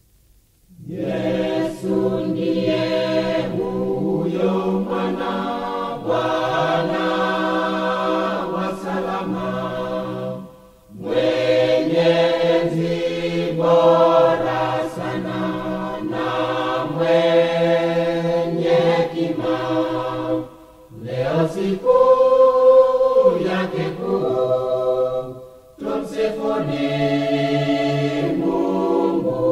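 Large church choir of men's and women's voices singing a Swahili Christmas hymn in harmony. The chords are held in long phrases and begin about a second in. The singing breaks off briefly three times between phrases.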